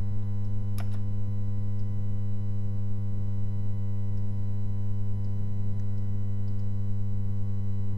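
Steady electrical mains hum in the recording chain, a loud low buzz with many overtones. A single short click about a second in.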